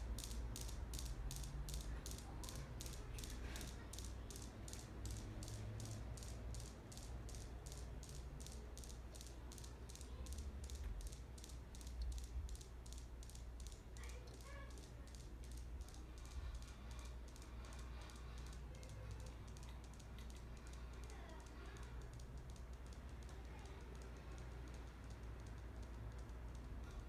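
Rapid, evenly spaced light clicking, several clicks a second, over a steady low hum; the clicks fade away in the second half.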